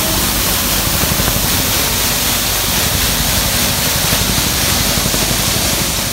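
Compact bike-lane mini street sweeper running with its rotating brooms scrubbing the lane: a loud steady hiss over a low engine rumble.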